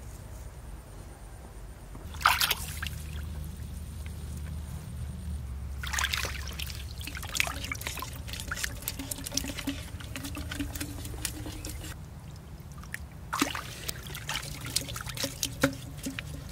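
Muddy water trickling and pouring out of a blue PVC pipe set into a mud bank, with louder spells about two, six and thirteen seconds in.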